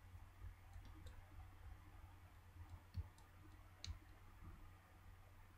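Faint, scattered small clicks and taps of a precision screwdriver and tiny screws against a smartphone's plastic casing during reassembly, a few seconds apart, over near silence.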